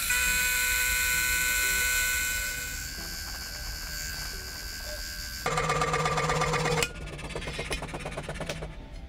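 Milling machine end mill cutting a brass bar, a steady high-pitched whine that fades after about two seconds. It gives way to a fine-bladed scroll saw cutting the brass into short pieces, with a louder stretch of sawing about halfway through.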